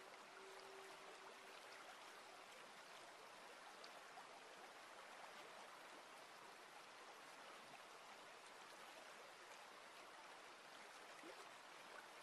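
Faint, steady trickling of water in a shallow stone-lined garden stream, running over pebbles and a small rock cascade.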